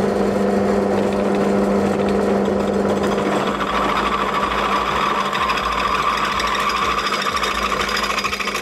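Drill press running at about 830 rpm, a 9.5 mm bit opening out a 9 mm hole in an aluminium power block. Steady motor hum, with a higher cutting whine joining about three and a half seconds in as the bit bites into the aluminium, easing off near the end.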